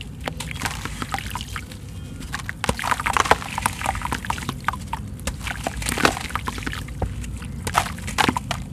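A soaked sand-cement block crumbled by hand over a basin of water: irregular gritty crunching and crackling as pieces break off, with wet sand pouring and splashing into the water.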